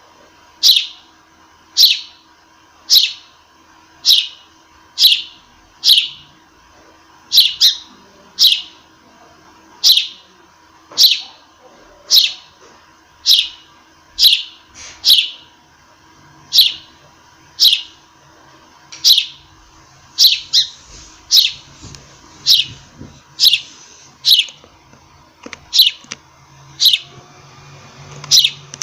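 A sparrow chirping over and over: single sharp chirps, each falling quickly in pitch, about one a second, some coming in quick pairs.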